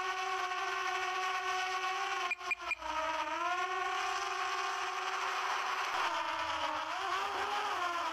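Quadcopter drone's propellers and motors whining with a steady multi-tone hum. The pitch dips and climbs back as the drone adjusts its speed, about three seconds in and again near the end, with a few short dropouts a little over two seconds in.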